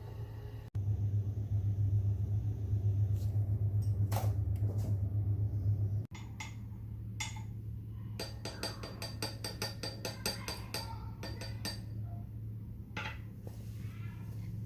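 A rabbit gnawing and chewing hard food: a run of rapid, crisp crunching clicks about two thirds of the way through, with scattered single clicks before and after. A steady low hum sits underneath, louder for about five seconds near the start.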